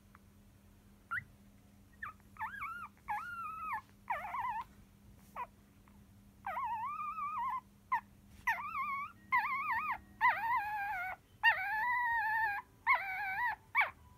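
Newborn poodle puppies whimpering in their sleep: a run of high, wavering whines. The first are short, and from about halfway they grow longer and follow close on one another.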